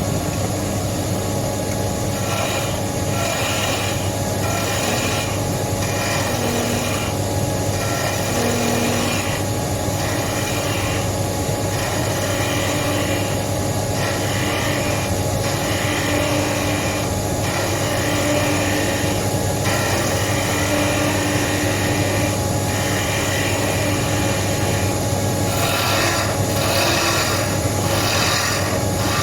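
Wood lathe running steadily with a bench leg spinning on it, and repeated scraping passes of a tool against the turning wood, roughly one every second or two.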